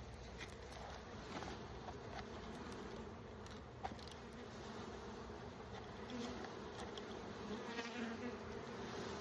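Mass of honeybees buzzing steadily as a package of bees is shaken out into a hive, with a single light knock a little under four seconds in.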